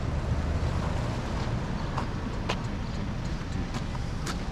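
Wind buffeting the microphone over outdoor street noise, with a low rumble that fades in the first second. Several sharp clicks or taps come in the second half.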